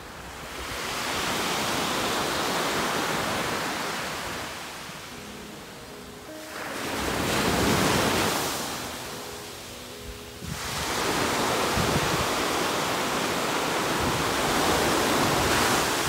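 Small sea waves breaking on a sandy beach and washing up the shore: three surges that each swell up and die away, the middle one the loudest and the last one long and drawn out.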